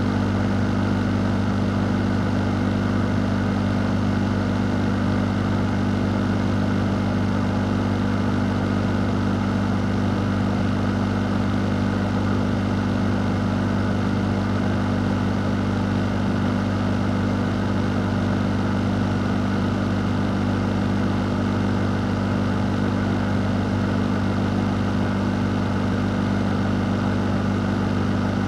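An electric fan running steadily: a constant low motor hum under an even rush of air, unchanging throughout.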